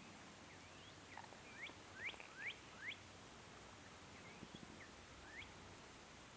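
A bird calling faintly: a quick series of short rising chirps about two seconds in, then a few fainter ones a couple of seconds later, over quiet outdoor background.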